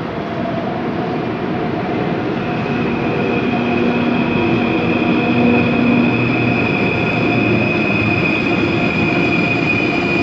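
ICE 3 high-speed electric train pulling in along a platform, its running noise growing steadily louder as it nears. A steady high whine sets in a couple of seconds in and holds.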